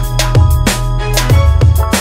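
Background music with a steady beat: deep bass drum hits that drop in pitch, sharp snare-like hits between them, and held notes over the top.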